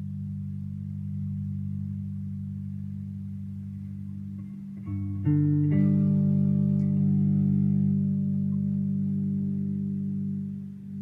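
Taurus T-24 electric bass played through a bass amp: low notes sustaining steadily, then about five seconds in a louder chord is plucked and left to ring, fading slowly, with a change of note just before the end.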